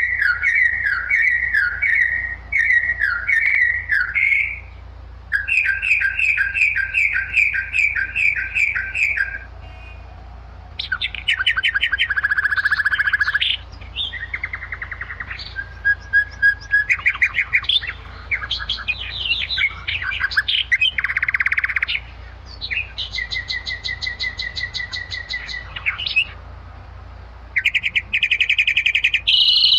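Birds calling and singing in a run of separate bursts a few seconds long with short pauses between. The bursts change from repeated chirps to fast trills and drawn-out whistled notes, over a steady low hum.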